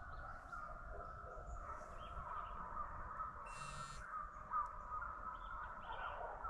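A pack of hunting hounds baying in the distance, a faint, steady, wavering chorus as they run a track. A brief hiss a little past halfway.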